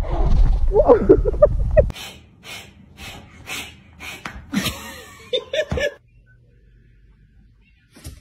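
Wind buffeting the microphone, with a few short wavering cries over it, cut off sharply about two seconds in. Then a person laughing in breathy, wheezing gasps about twice a second, with a short burst of voice near the end of the laughter.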